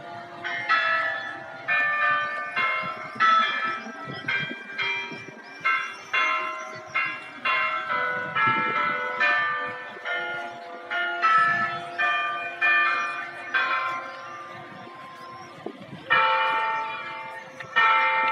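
Clock-tower bells playing a melody, one struck note about every half second, each ringing on with several overtones. The notes thin out and soften about fourteen seconds in, then resume more loudly about two seconds later.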